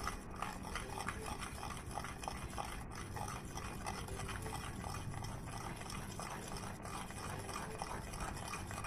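Spatula stirring quickly through a hot, bubbling mixture of milk, sugar and wheat flour in a steel pan, a steady run of small wet scrapes and ticks. The stirring is fast to keep the flour from forming lumps.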